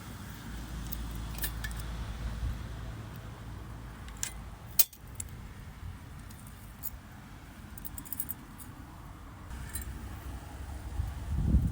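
Scattered light metallic clicks and clinks, with one sharper click about five seconds in, over a steady low rumble of wind on the microphone.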